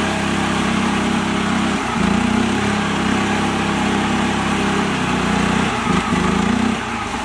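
Mini tractor's small engine running hard as its rear wheel spins in deep mud, flinging it up, the sign that the tractor is stuck. The engine note dips briefly twice and drops off near the end.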